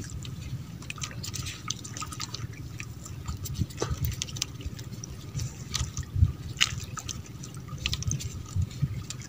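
Water splashing and dripping in many small, irregular splashes over a steady low rumble.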